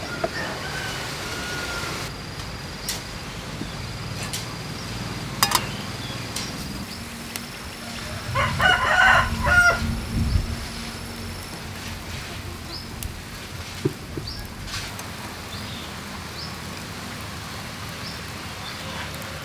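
A rooster crows once, about halfway through, and this is the loudest sound. A couple of sharp clicks come a few seconds before it, and faint short chirps follow later.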